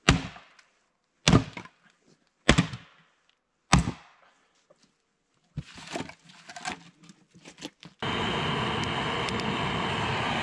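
Four sharp axe strikes about a second and a quarter apart, splitting firewood held upright inside an old tyre, followed by small knocks and rustles as the split pieces are handled. About eight seconds in, a steady rushing noise with occasional crackles takes over: a campfire burning.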